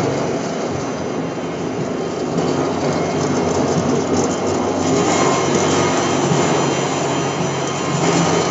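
Sawdust pellet mill running: a steady, loud mechanical drone with a low hum, growing a little louder twice.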